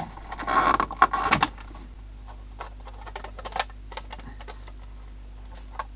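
Plastic Beta video cassette shell being handled and pulled apart: a burst of rustling and sharp plastic clicks in the first second and a half, then scattered light clicks and taps.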